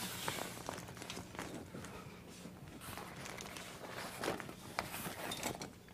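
Soft rustling of a fabric containment envelope as its Velcro-lined top is pressed onto a tubular frame, with scattered light taps and handling noises over a faint steady hum.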